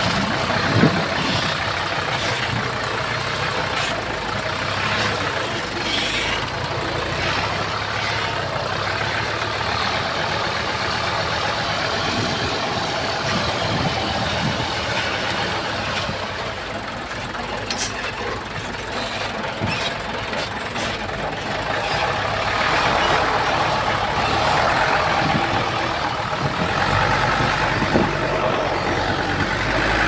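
A small Komatsu bulldozer's diesel engine running steadily, with scattered clanks and knocks. It grows louder about two-thirds of the way through.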